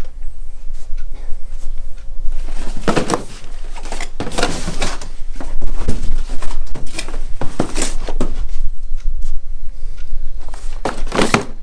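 Model kit boxes being handled: a run of irregular knocks and clicks with rustling between them as the boxes are picked up, moved and set down.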